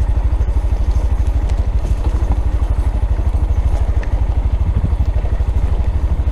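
A 2015 Honda Grom's 125 cc single-cylinder four-stroke engine running at low revs along a rough trail, its exhaust pulsing evenly at about a dozen beats a second. It is picked up by the action camera's built-in microphone.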